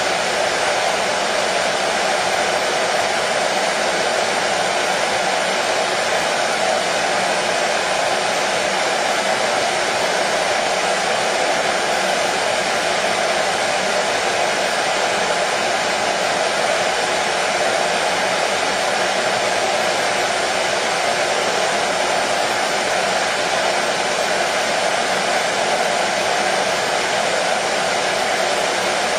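Hair dryer running continuously, a steady even whoosh of blown air and motor hum with no change in speed, used as soothing white noise for colicky babies.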